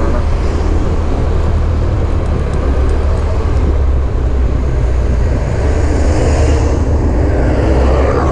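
Riding a motorcycle through town traffic: a steady low wind rumble on the microphone over engine and road noise, with a louder hiss from passing traffic near the end.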